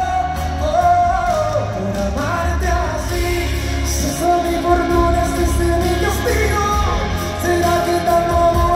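Live pop ballad: a male singer holding and bending long notes over a full band of keyboards, guitars, bass and drums, echoing in a large arena.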